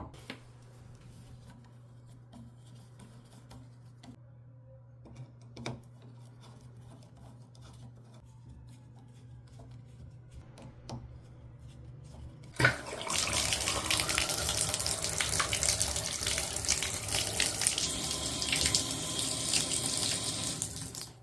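A few small handling clicks, then about two thirds of the way in a sharp click as the shower valve opens and water comes on at full flow, spraying steadily, until it drops away right at the end.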